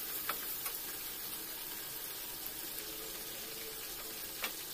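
Chicken and sliced onions frying in oil in an aluminium kadai, a steady sizzle, with a few light clicks of a metal spatula against the pan near the start and once near the end.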